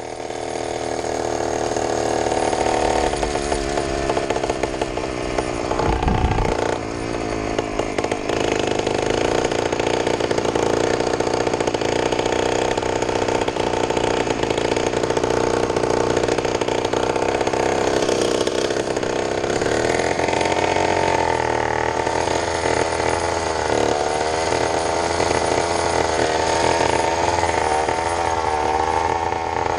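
80cc two-stroke bicycle kit engine running while the bike is ridden, its buzzing pitch rising and falling with the throttle. There is a brief low rumble about six seconds in.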